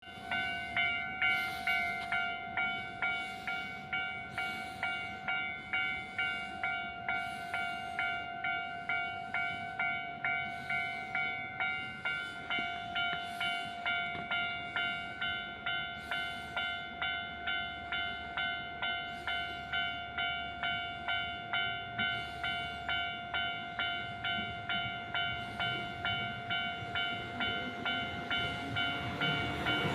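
Railway level-crossing warning bell ringing steadily, an even two-tone ding about twice a second. Near the end a train's running noise rises as it approaches.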